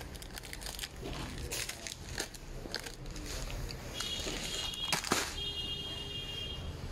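Plastic biscuit wrappers crinkling and rustling as packets are handled, with a sharp knock about five seconds in as a packet lands in a plastic shopping basket. A steady high-pitched tone sounds in the background from about four seconds in.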